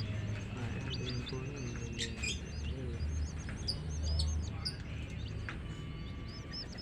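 A brood of baby chicks peeping: many short, high cheeps overlapping, thickest in the middle of the stretch.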